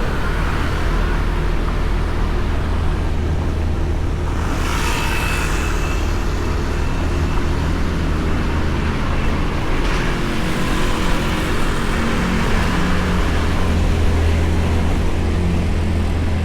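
Honda Beat scooter's single-cylinder engine running with steady road and wind rumble, heard from a camera mounted on the scooter while riding in traffic. A brief louder rush of passing traffic comes about five seconds in.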